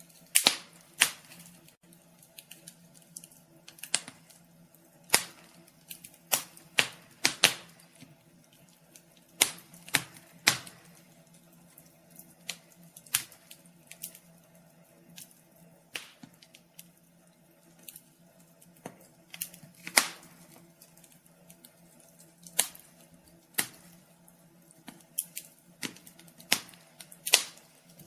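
Wood fire crackling in a fireplace: irregular sharp pops and snaps, sometimes several in quick succession, over a faint steady low hum.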